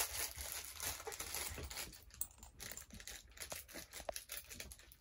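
Crinkly plastic wrapper of a small toy package crackling and tearing as it is pulled open by hand, loudest at the start and then going on in smaller rustles.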